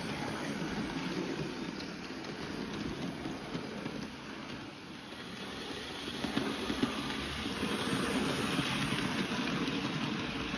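Hornby model trains running on the track: a steady whirr of the motors and the wheels on the rails, louder in the second half as the goods wagons pass close by.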